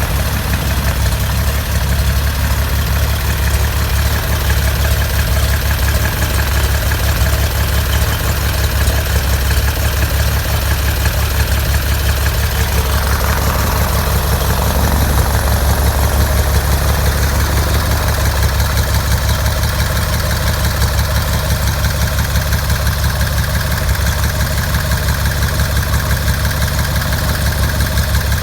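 Continental O-520 six-cylinder aircraft engine on a Cessna 182 (P-Ponk conversion) running steadily through a high-performance exhaust on its first start, a loud, fast-pulsing rumble that sounds mean, like a race car. One cylinder is not firing every time. About halfway through, a higher note joins in.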